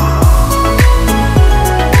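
Background music with a steady deep beat, a little under two beats a second, over held tones.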